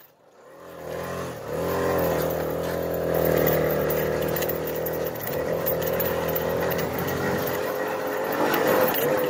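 Kinetic moped's 49 cc two-stroke engine running at a steady speed under way. The sound fades in during the first second.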